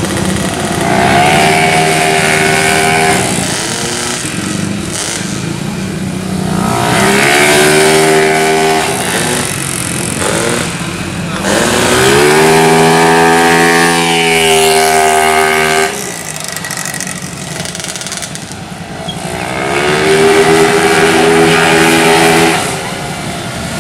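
Racing automatic scooters accelerating hard at full throttle, four times: each engine's pitch climbs quickly and then holds high before falling away.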